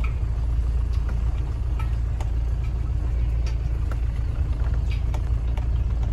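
Mahindra Bolero driving on a rough dirt track, heard inside the cabin: a steady low rumble of engine and tyres, with scattered light clicks and rattles.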